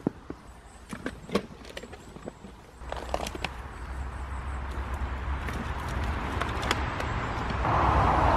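Clicks and rustles of camping gear being handled and packed, then the rush and low rumble of a car on a nearby road, growing steadily louder.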